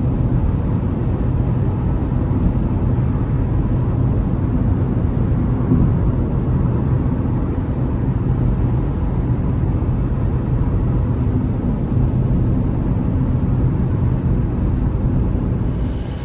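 Mini John Cooper Works F56 running steadily, a low drone of engine and road noise. It cuts off abruptly near the end.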